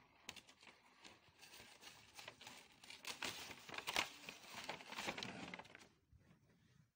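Brown kraft paper bag crinkling and rustling as it is handled right against the microphone, an irregular crackle of paper that fades out near the end.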